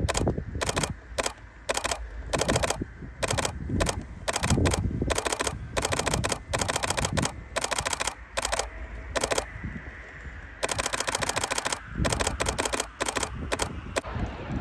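Canon 7D DSLR shutter firing in rapid bursts of continuous shooting, loud and close because the recording phone is mounted on the camera. The bursts come in short runs, with one longer unbroken run about ten seconds in.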